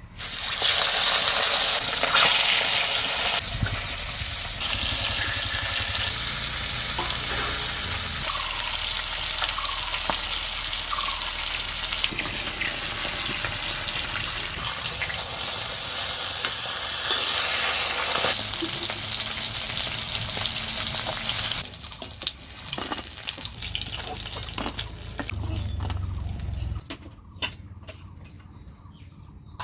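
Katla fish pieces frying in hot oil in a kadai: a loud, steady sizzle that starts abruptly and drops sharply to a much quieter level about 27 seconds in.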